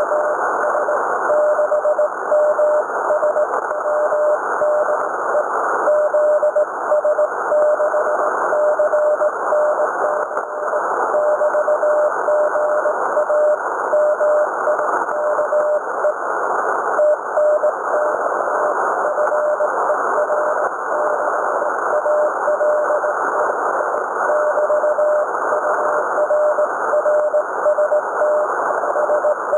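Morse code (CW) heard on a ham radio receiver: a single mid-pitched beep keyed on and off in dots and dashes over steady band hiss, with short gaps between the sendings.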